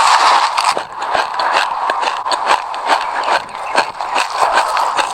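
Close-miked crunching of sesame seeds being chewed: a dense, continuous crackle of many tiny sharp clicks.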